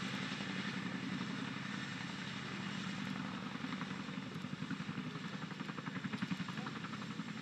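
CH-47 Chinook tandem-rotor helicopter running close by as it settles onto the ground, its rotors giving a steady roar with a fast, regular blade thump that grows more pronounced in the second half.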